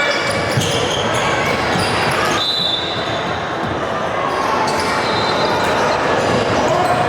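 Basketball game sounds in an echoing gym: a ball dribbling on the hardwood court, with sharp repeated bounces under a steady wash of spectators' voices.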